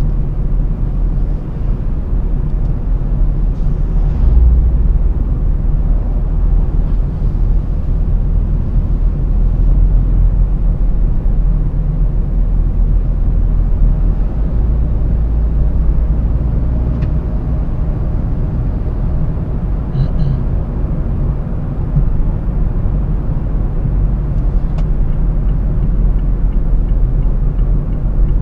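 Steady low road and engine rumble of a car driving at speed on a highway, heard from inside the cabin. The rumble deepens for a few seconds just after the middle as an oncoming lorry passes.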